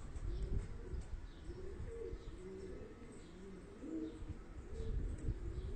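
Domestic pigeons cooing, several low calls overlapping one after another, with faint high chirps from other birds over a low rumble.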